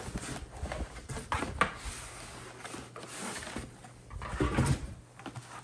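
Cardboard being handled: rustling, scraping and small knocks as a shoebox is pulled out of a cardboard shipping box, with a louder bump about four and a half seconds in.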